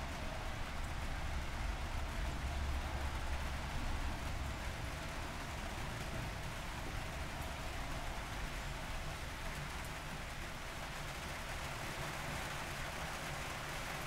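Steady rain falling as an even hiss. A low rumble sits beneath it, strongest over the first few seconds.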